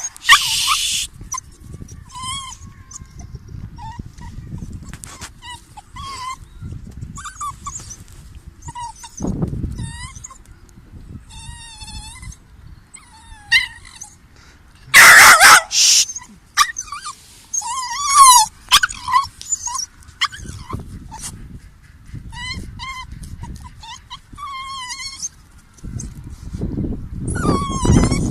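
A pet dog whining in a long series of short, high-pitched cries that bend up and down in pitch, with louder outbursts about halfway through.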